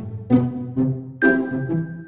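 Instrumental background music, with a new note struck about twice a second.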